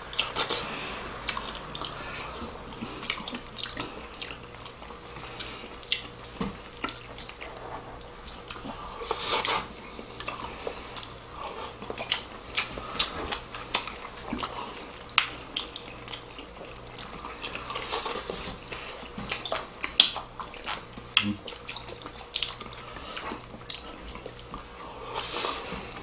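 People eating: wet chewing and mouth sounds, with many short clicks of chopsticks against bowls and plates.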